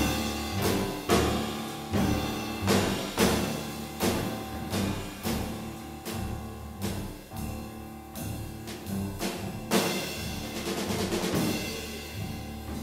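Live jazz drum solo on a drum kit: loud, irregularly spaced drum strikes, about one or two strong accents a second, with the drums ringing on between hits.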